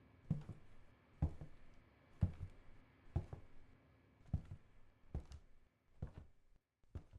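A series of dull thuds about a second apart, each followed closely by a softer second knock, eight in all, with the last two coming a little closer together.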